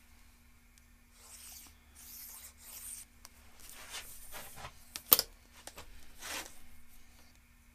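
A long steel rule sliding and scraping over a thin sheet of aluminium on a steel-topped workbench, in several rough rubs, with one sharp clack about five seconds in as the rule is set down.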